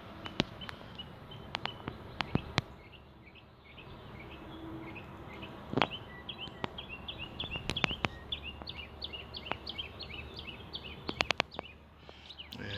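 Birds chirping in quick repeated calls in the background, with scattered sharp clicks and knocks from handling the AK pistol and camera close to the microphone.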